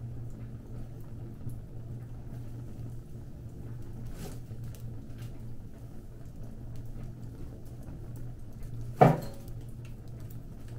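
Wood fire burning with a few faint crackles and one loud pop about nine seconds in, over a steady low hum.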